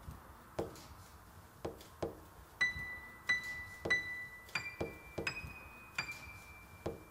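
Horror film score: soft low thuds, often in pairs, pulse about once a second, and a little under three seconds in a slow high piano line of six single notes starts, the last three a step higher, each note left ringing.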